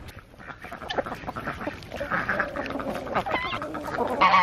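Chickens and ducks crowding in to feed on bananas: many sharp pecking taps with soft clucking and quacking, and a loud honking call near the end.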